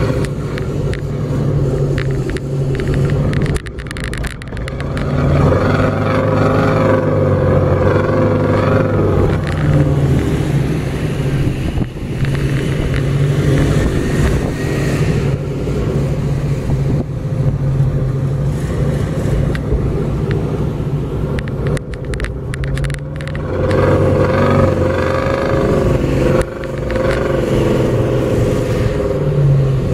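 Off-road SUV engines, among them a Jeep Cherokee XJ's, revving as the vehicles climb and cross soft sand dunes, the engine note swelling twice.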